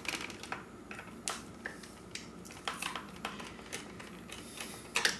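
Scattered light clicks and taps of hands handling the plastic underside of an iRobot Roomba 700-series robot vacuum during reassembly, with a louder clack about five seconds in.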